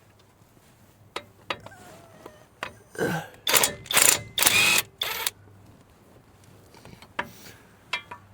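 Metal tools and parts being handled: a few sharp clinks, then a run of four loud, rough metallic rattles and scrapes in the middle, then more scattered clinks near the end.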